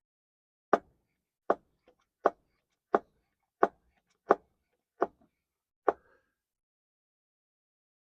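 Hand oil pump being worked in steady strokes, eight sharp clicks about 0.7 seconds apart that stop about six seconds in, pumping gear oil into a differential through its fill hole.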